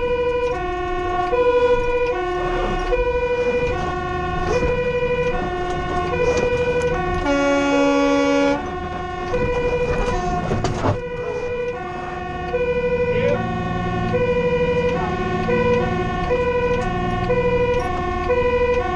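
Fire engine's two-tone siren heard from inside the cab, switching steadily back and forth between a high and a low note. About eight seconds in, a different steady note is held for about a second. The truck's diesel engine rumbles underneath, stronger in the later part.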